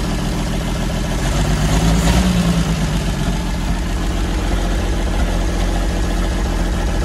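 1981 Jeep CJ7 engine idling steadily with its new head gasket fitted, swelling slightly about two seconds in.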